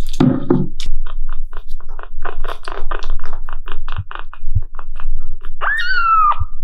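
Kitten suckling milk from a small pet nursing bottle: quick wet smacking clicks, several a second. Near the end a single kitten meow that falls in pitch and then holds. A brief muffled rustle at the start.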